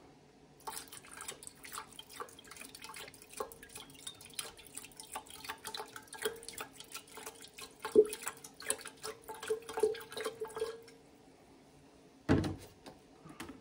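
Water poured from a plastic gallon jug into a stainless steel pitcher, splashing steadily for about ten seconds before it stops. A single thump comes near the end.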